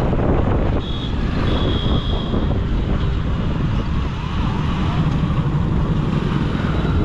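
A motorcycle engine running while riding, with low wind rumble and road traffic noise around it. A brief faint high tone sounds about a second in.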